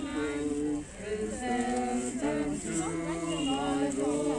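Unaccompanied group singing by mourners, several voices holding long steady notes together and moving from note to note.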